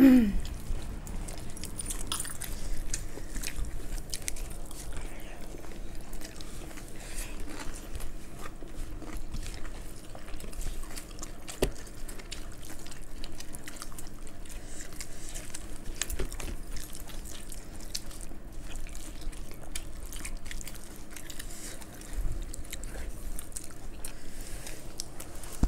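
Close-miked eating by hand: chewing, small wet mouth clicks and the soft squish of fingers working fried rice and saucy veg manchurian. A brief falling vocal sound comes right at the start.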